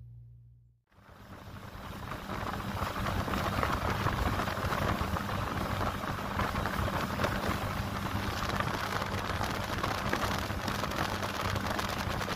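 Small motorboat's outboard engine running at speed, a steady low hum under a loud rushing of water and wind. It comes in about a second in and holds steady.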